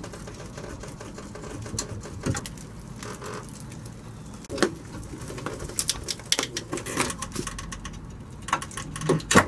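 Scattered light clicks and creaks of metal as a floor jack is slowly let down, lowering the engine and dropped subframe.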